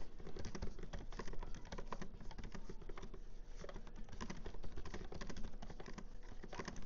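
Keys of a 2024 14-inch MacBook Pro keyboard clicking in a quick, uneven run as a sentence is typed with two fingers.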